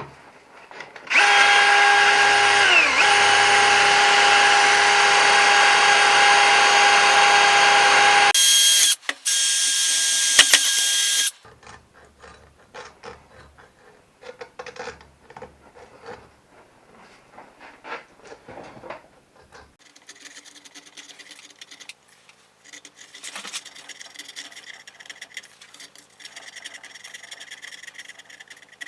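Power drill running in a steady whine for about seven seconds, its pitch dipping briefly under load near 3 s, then a second shorter run, while the thermostat housing is cleaned out. After that, faint scraping and clicking.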